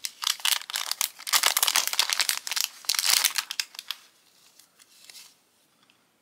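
Clear plastic cellophane bag crinkling as a bundle of die-cut paper labels is pulled out of it and handled. Near the end this drops to faint paper rustling.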